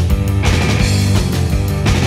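Rock music soundtrack with a steady beat.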